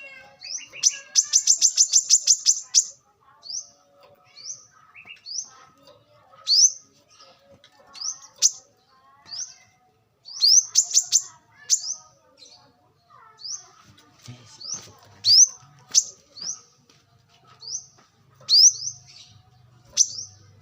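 Brown-throated sunbird calling: sharp, high chirps that sweep upward, with a rapid trill of about a dozen notes near the start, then single or paired chirps about once a second.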